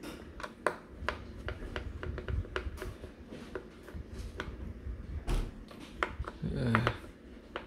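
A small screwdriver working screws out of the bottom panel of a Dell Latitude 7404 Rugged laptop: irregular light clicks and ticks as the bit turns in the screws and the hands work on the case.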